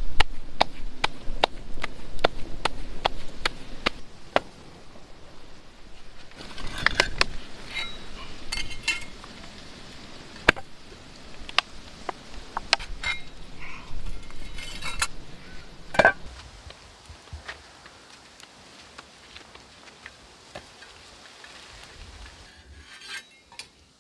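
Pearl millet (bajra) dough being slapped between bare palms to shape a rotla, rapid pats about three a second for the first four seconds. Then scattered clicks and knocks, the loudest about 16 seconds in.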